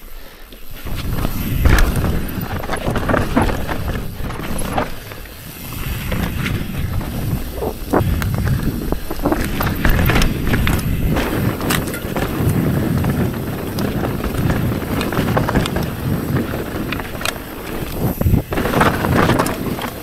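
Mountain bike rolling fast down a dry dirt trail: tyres rumbling over dirt, rock and roots, with frequent short rattles and knocks from the bike over the bumps.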